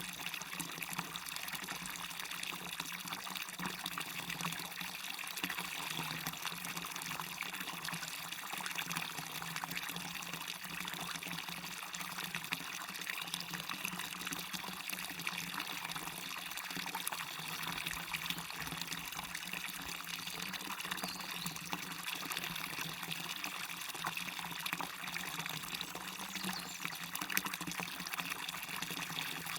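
Waterfall splashing steadily, a continuous hiss of falling water that sits mostly high, with little deep rumble.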